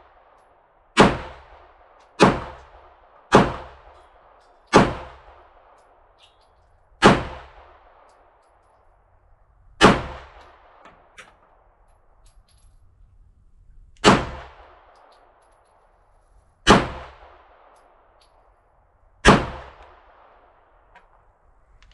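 Nine pistol shots fired one-handed at an uneven pace, three quick ones in the first few seconds and then slower, each followed by a short echo.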